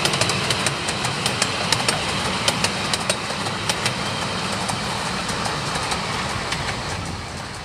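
Miniature railway passenger carriages rolling past on the track, the wheels clicking rapidly and irregularly over rail joints over a steady rumble, starting to fade near the end as the train draws away.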